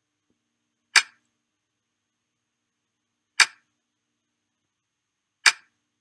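Computer's software mouse-click sound, three short sharp clicks about two seconds apart, each a left click sent by head-pointing and dwelling on a key of the on-screen keyboard to type a letter.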